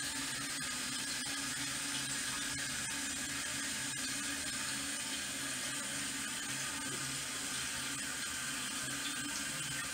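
Toilet tank refilling through a newly installed fill valve, a steady, unbroken hiss and rush of water from the valve.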